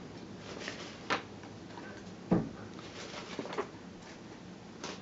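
A few scattered soft taps and knocks as a cat bats at a feather wand toy on a carpeted cat tree, the loudest a duller thump about two seconds in.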